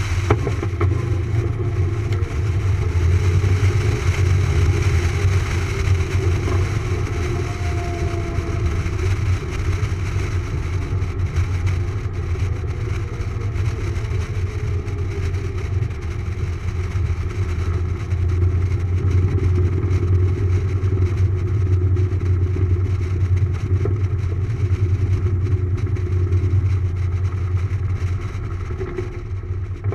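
Griffon Lionheart's Pratt & Whitney R-985 radial engine running steadily at low taxi power, a deep even hum with a rush of air over it.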